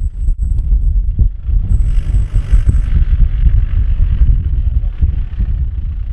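Wind buffeting the microphone in an irregular low rumble, over the engine of a Land Rover Discovery crawling across soft, wet ground.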